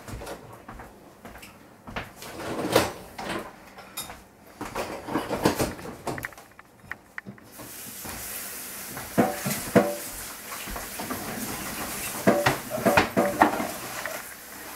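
Kitchen clatter of dishes and cupboard knocks, a few sharp clicks and thuds scattered through. About halfway in, a steady rushing hiss of water running from a tap starts and keeps going under the knocks.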